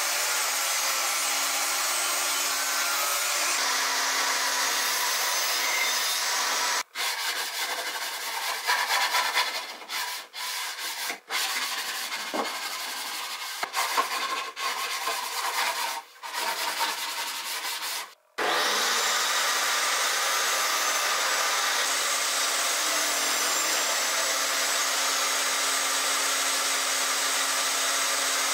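Table saw motor running steadily for the first few seconds. After an abrupt cut comes a stretch of irregular hand-sanding strokes on the edge of an MDF panel, broken by several more sudden cuts. Then the saw starts up again and runs steadily.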